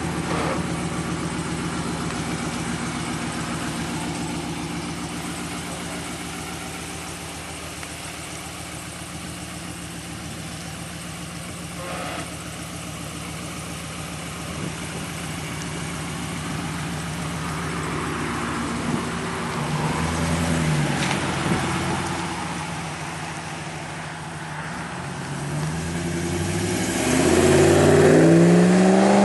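A 2014 Ram 1500's 5.7-litre Hemi V8 exhaust, through a Flowmaster Hushpower muffler, idling steadily. Its pitch rises and falls about two-thirds of the way in, then it accelerates loudly as the pickup pulls away and drives past near the end.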